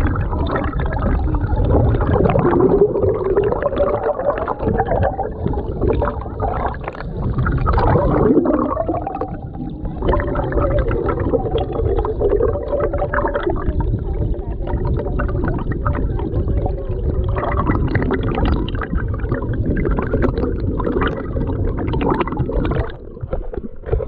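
Flowing stream water heard through an underwater camera: a steady, muffled low rumble and gurgling.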